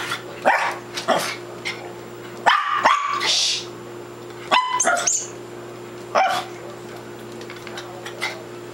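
Five-month-old papillon puppy barking: about seven short, sharp yappy barks, singly and in quick pairs, with pauses of a second or more between them.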